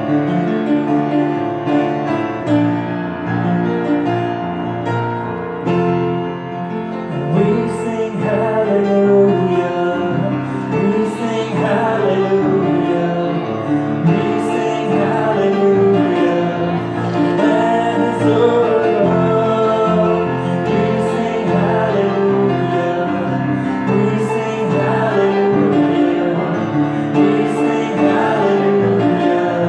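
A song with piano accompaniment; a singing voice comes in about seven seconds in.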